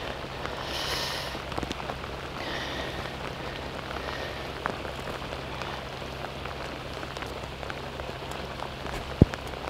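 Heavy rain falling steadily, with many small scattered drop ticks. A single sharp knock about nine seconds in.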